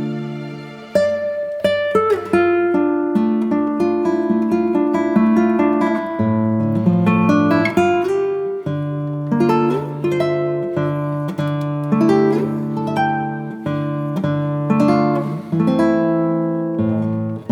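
Background instrumental music of plucked notes in quick succession over held lower notes.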